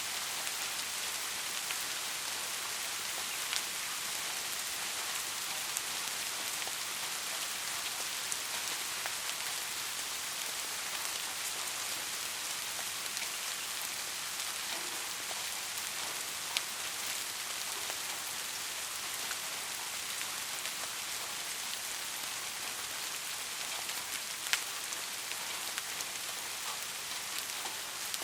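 Soft steady rain falling, an even high hiss with scattered faint drop ticks and a few sharper single drips.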